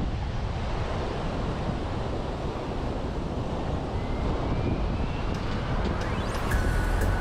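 Wind rumbling on the microphone over a steady wash of sea surf. Near the end, faint steady tones and a few clicks come in.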